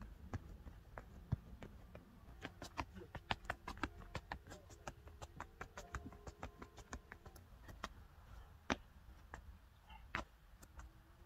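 Trainers tapping quickly on a rubber running track as feet step through an agility ladder: a fast run of light taps, several a second, densest in the middle, then a few single louder foot strikes near the end.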